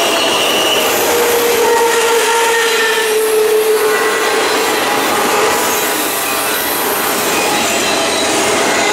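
Empty autorack freight cars rolling past close by: a steady rumble and rattle of steel wheels on the rails, with thin wheel-squeal tones that come and go.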